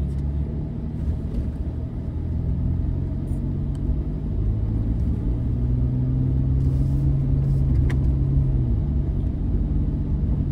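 Vehicle engine running steadily under load as it climbs a rutted dirt track; the engine note changes about nine seconds in.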